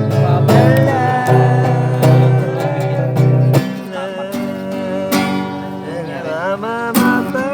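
Music: acoustic guitar with a sung melody; the low bass drops out about three and a half seconds in.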